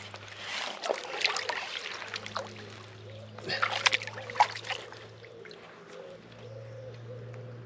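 Water splashing in two bursts, a couple of seconds each, as a large carp is let go from a sling in the lake margin and kicks away under the angler's hands.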